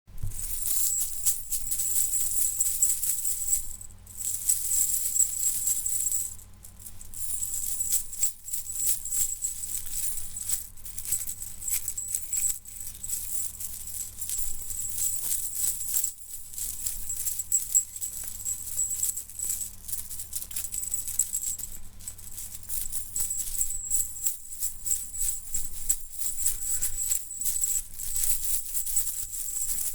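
Metal chain rattling and jingling as a dense, continuous clatter, with short pauses about 4, 6.5 and 8 seconds in. A faint steady low hum lies underneath.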